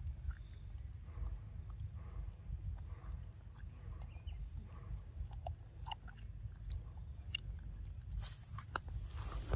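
Young macaque chewing and biting soft papaya, with small wet mouth clicks that come more often in the second half. A faint high insect chirp repeats about once a second over a steady low rumble.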